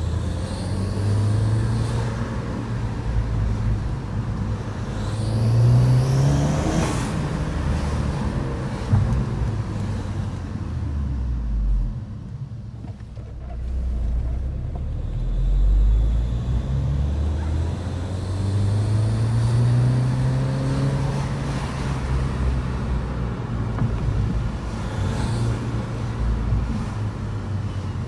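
2012 VW GTI's turbocharged four-cylinder engine revving up twice, with a thin high whistle that rises with the revs. The squeal comes from an exhaust leak at a failed exhaust manifold stud and gasket.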